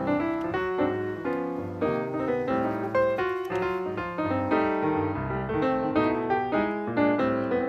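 Background music: a busy piano tune with quick notes.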